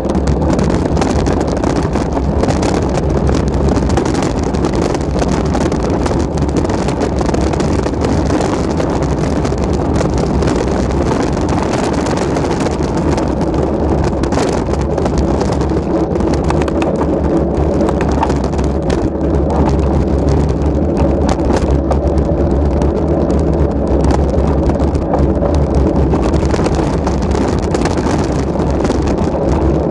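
Steady rumbling riding noise: wind buffeting the microphone, with tyres crackling over a loose gravel dirt track.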